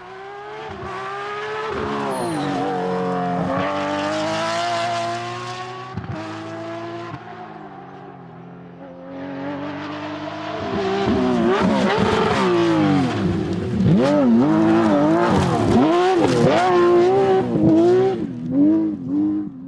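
Race car engine revving, its pitch climbing through the first few seconds and sagging back. From about halfway it runs louder, with the pitch swooping rapidly up and down.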